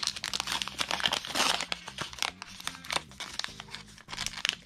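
Plastic foil wrapper of an NBA Hoops trading-card fat pack crinkling and tearing as it is pulled open by hand, a rapid, uneven run of crackles.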